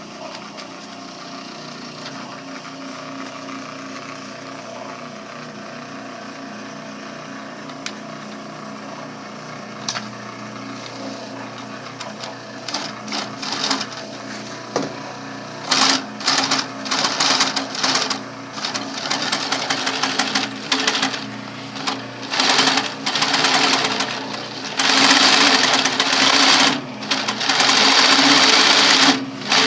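MITT 4000 triple-feed industrial sewing machine. A steady hum for about the first twelve seconds, then the machine stitching in short start-stop bursts, with longer runs near the end.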